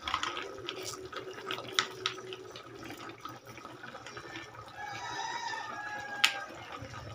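Pork and chicken caldereta bubbling in a pan as tomato sauce is squeezed into it from a plastic pouch, with scattered ticks and two sharp clicks. About five seconds in there is a faint drawn-out call.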